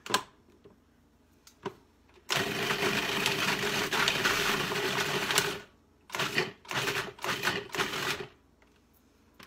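Food processor chopping roasted tomatoes, garlic and jalapeños for salsa: a click as the top is set, about three seconds of continuous running, then about six quick pulses.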